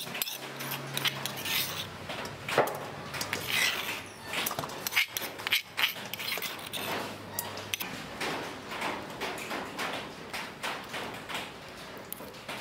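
Metal spoon scraping and tapping inside a stone mortar and against a stainless steel bowl, a steady run of short scrapes and clicks.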